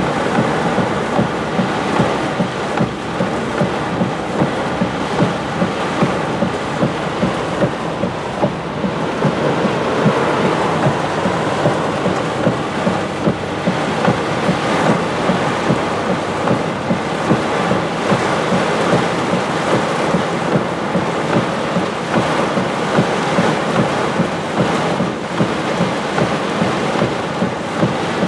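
Heavy rain beating on a vehicle's roof and windshield, heard from inside the cab, with a steady run of soft thumps about once a second or a little faster.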